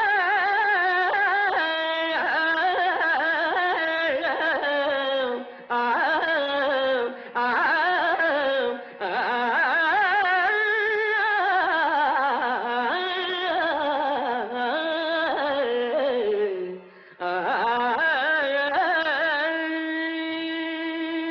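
Carnatic-style film song: a voice sings a long, heavily ornamented passage without clear words, its pitch sliding and wavering, in phrases broken by short pauses, settling on a held note near the end.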